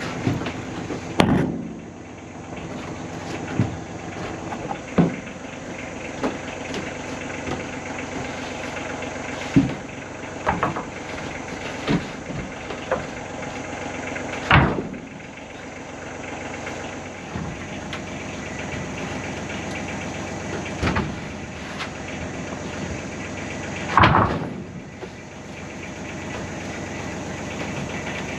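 Freshly sawn beech boards knocking and clattering as they are set down on a stickered drying stack: about eight separate knocks, the loudest clatters about halfway through and again near the end. A steady humming drone runs underneath.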